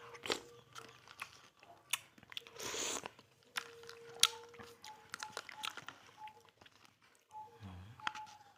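Close-up eating sounds: crunchy bites and chewing in a series of sharp crunches and clicks, with a longer noisy burst about two and a half seconds in.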